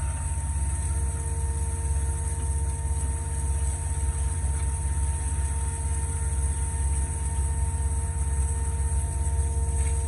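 Concrete line pump running steadily, a low rumble with a steady whine, under the hiss of a hose spraying water into the hopper.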